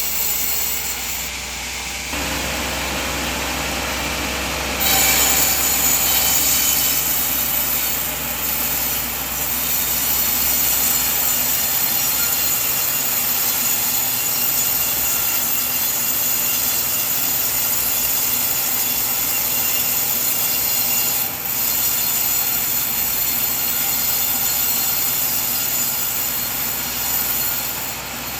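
Band sawmill blade cutting through a coconut log, a steady high-pitched sawing sound that gets louder about five seconds in.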